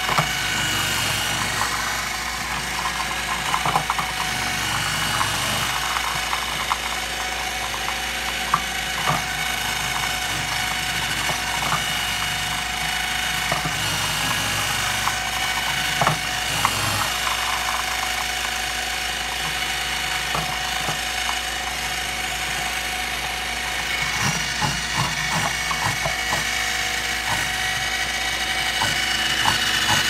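KitchenAid 14-cup food processor running, its motor whining steadily while cauliflower pushed down the feed tube is shredded. Irregular clattering knocks come as pieces hit the spinning disc.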